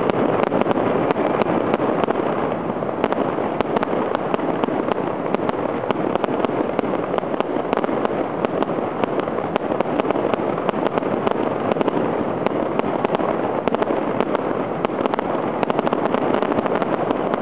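Aerial fireworks bursting: a dense, irregular crackle of many sharp pops and cracks.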